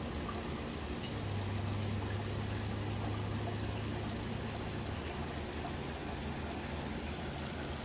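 Water trickling and running steadily at the turtle pond, with a low hum that comes in about a second in and stops around the five-second mark.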